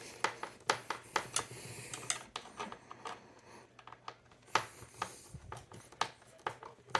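Screwdriver driving a screw through a rubber foot into the bottom of a Remington portable typewriter: irregular small metal clicks and scrapes.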